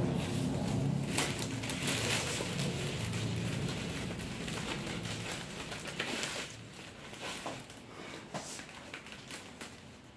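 Clear cellophane gift wrap crinkling and rustling as a ribbon is tied around a wrapped potted plant. The rustling is busiest in the first half and fades toward the end.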